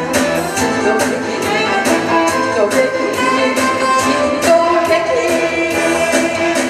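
A woman singing a Korean trot song live into a microphone over an amplified backing track with a steady beat.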